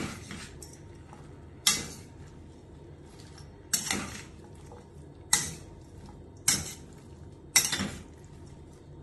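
Steel spoon stirring chopped vegetables in a stainless steel kadai, striking the pan in five sharp metallic clanks, each with a brief ring, between quieter shuffling of the vegetables.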